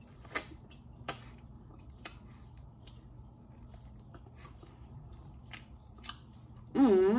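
Close-up chewing and biting of a salad wrap: a few sharp, wet clicks in the first two seconds, then softer small mouth noises. A brief hummed voice sound near the end.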